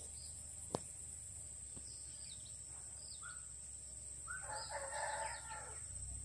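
A rooster crowing once, a call of a little over a second that starts about four seconds in, with a few short bird chirps before it and a sharp click under a second in.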